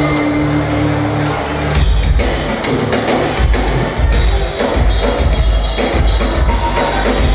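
Live band music heard through a large hall's sound system: sustained held notes, then drum kit and bass come in about two seconds in and play on with a steady beat.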